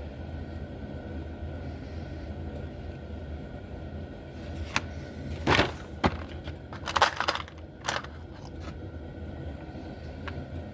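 A few sharp clicks and short metallic clatters, bunched between about five and eight seconds in, as small hand tools and parts are picked up and handled, over a steady low hum.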